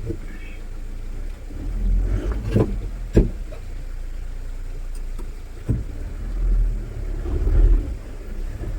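Mahindra Bolero Pickup engine running as it drives over a rough off-road track. Several sharp knocks sound through the run, a couple of them close together a few seconds in, as the body jolts over bumps.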